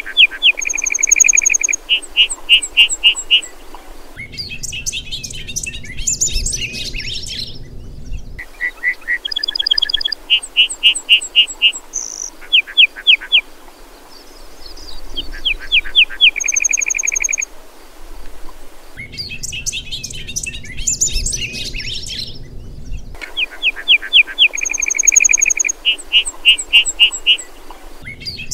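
Birdsong from several birds: quick trills, rapid chirp series and short whistled notes. A low rushing noise comes in for a few seconds twice, and the same passage of calls repeats about every 15 seconds.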